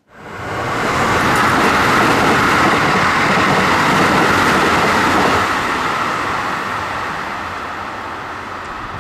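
Electric commuter train running past close by: a loud, steady rumble of wheels on rails that eases off slowly after about five seconds as the train moves away.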